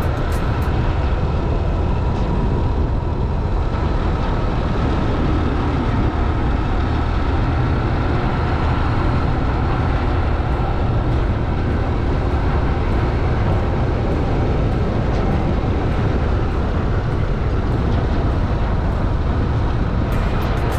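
Steady travel noise of a moving road vehicle: a constant low rumble of engine, tyres and air, with faint steady whining tones above it.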